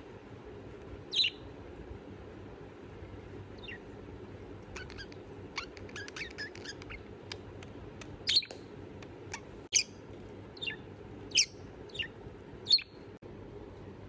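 Budgerigars chirping: short, sharp, high chirps, scattered and loudest in the second half, with a run of faint quick ticks in the middle, over a steady low room hum.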